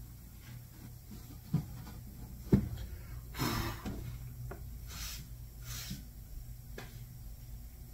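Wooden boards of a glued-up box being handled on a workbench: two knocks of wood set down, about one and a half and two and a half seconds in, the second the loudest, then scraping and short swishes as pieces slide into place, over a steady low hum.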